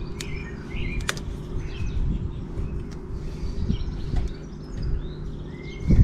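Small birds chirping and singing on and off over a steady low background rumble, with a couple of sharp clicks in the first second or so.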